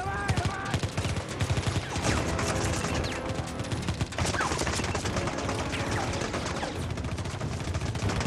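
Sustained volley of automatic assault-rifle fire, many rapid shots overlapping without a break.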